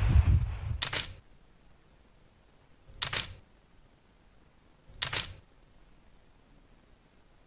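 Low rumble with wind on the microphone fading out in the first second, then three short camera-shutter clicks about two seconds apart over near silence.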